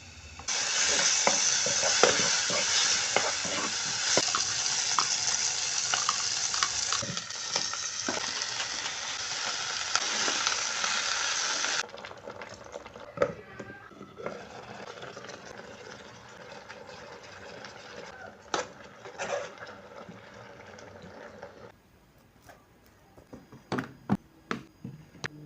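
Food sizzling as it fries in an electric fry pan while a utensil stirs and taps against the pan. The sizzle starts suddenly and is loud for the first half, then drops abruptly to a quieter sizzle, and near the end only a few taps remain.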